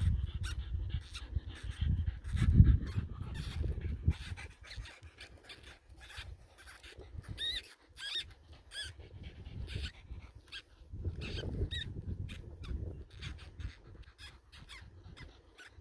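Newborn weasel kits making many short, high-pitched squeaks, with a low rumble from wind on the microphone or handling in the first few seconds and again later.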